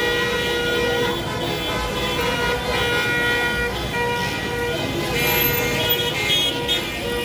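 Many car horns honking at once in celebration, long overlapping blasts at several pitches, over the noise of a crowd in the street.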